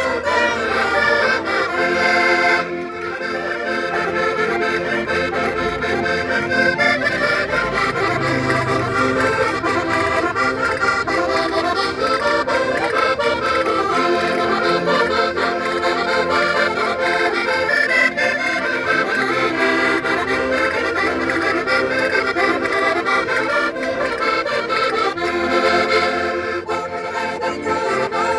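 Concertinas playing a traditional Portuguese folk tune, with no singing, and a brief dip in loudness about two and a half seconds in.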